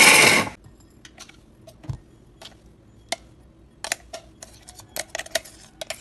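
Mixer grinder pulsed once, a loud whir of about half a second, grinding cashews in a short pulse so they don't turn oily. Then a metal spoon clinks and scrapes against a glass bowl in a run of light taps as the ground cashew is spooned in.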